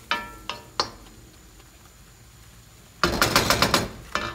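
Wooden spatula knocking and scraping against a wok while stir-frying. There are three knocks with a short metallic ring in the first second, then a quick run of clattering strokes about three seconds in, and one last knock near the end.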